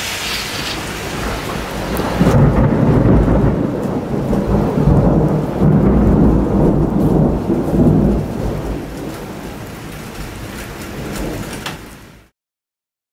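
Rain falling steadily, then a long roll of thunder starts about two seconds in, rumbles for several seconds and fades away. The sound cuts off suddenly near the end.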